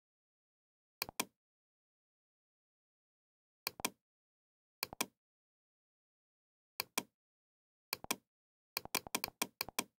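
Computer mouse clicking: each click is a quick pair of press and release, coming a few times with pauses of one to two seconds, then a fast run of clicks near the end.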